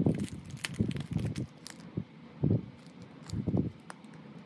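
Plastic packaging crinkling and rustling as it is handled, in irregular short bursts with light clicks.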